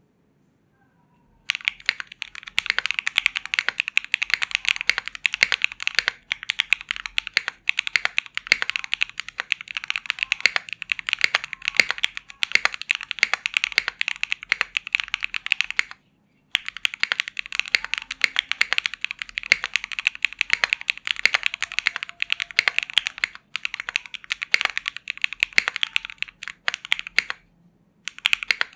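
Continuous typing on a custom HHKB-layout mechanical keyboard with an aluminium plate, hotswap PCB and Keygeek Briny keycaps: a dense, quick run of key clacks. It starts a moment after the beginning and stops briefly twice.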